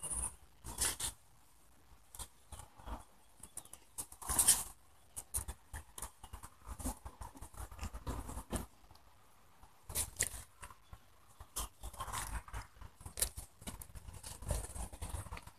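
A hen being held and handled on a concrete floor: scattered soft clicks, scuffs and feather rustles, the loudest about four and a half seconds in.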